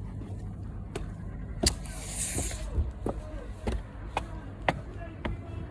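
Footsteps at a walking pace, about two a second, over a steady low rumble, with a short hiss about two seconds in.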